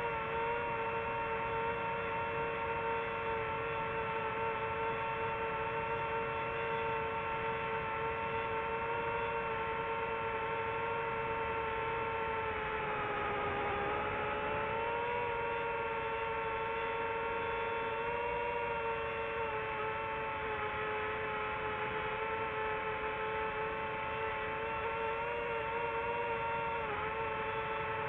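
Steady mechanical hum of a small motor, made of several close tones. The pitch sags briefly about halfway through and then recovers.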